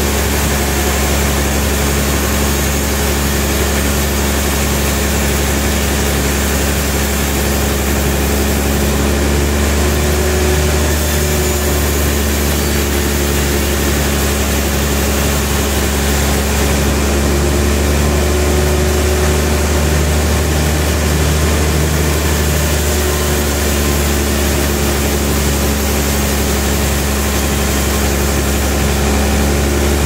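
Large vertical band sawmill running steadily, a deep even machine hum with a regular low pulsing throughout.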